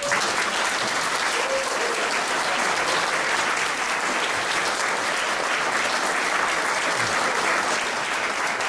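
An audience breaks into applause all at once and keeps clapping steadily.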